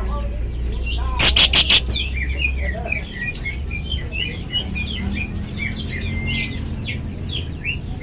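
Fischer's lovebird chattering: a fast, continuous run of short high chirps, with four loud, harsh calls in quick succession about a second in.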